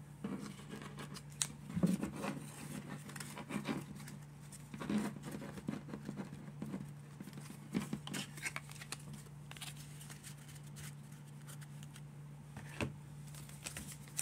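Trading cards being handled and set down on a wooden desk: soft, irregular clicks, taps and slides of card stock, over a low steady hum.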